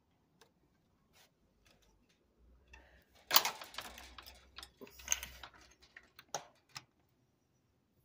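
Close handling noise: scattered small clicks, then a burst of rubbing and scraping from about three to five and a half seconds in, as the phone or camera is moved around. No machine is running.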